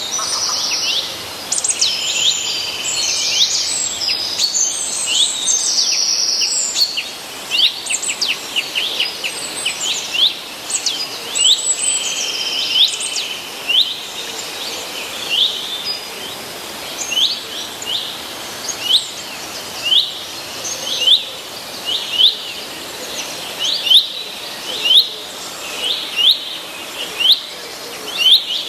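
Several wild birds singing and chirping together; in the second half one bird repeats a short, sharp chirp about once a second.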